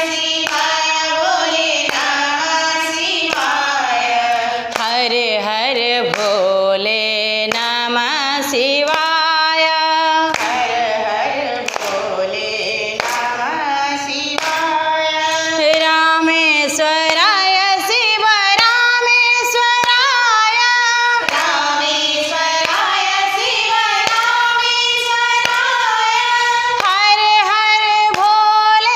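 Women's voices singing a Hindu devotional bhajan together, with steady hand claps keeping time throughout.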